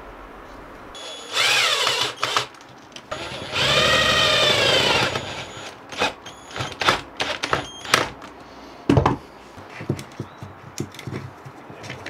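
Cordless drill-driver running in two short bursts as it drives screws to fix a switch into an MDF mount, its motor whine bending in pitch as each screw goes in. Clicks and knocks of the drill and parts being handled follow.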